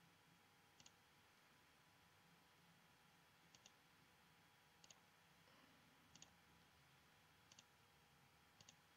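Near silence with faint computer mouse clicks, about six of them, each a quick double tick.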